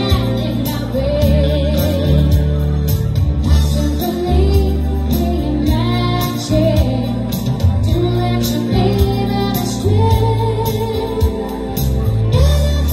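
Live song from a guitar duo: a woman singing a wavering, held melody over acoustic guitar and electric guitar.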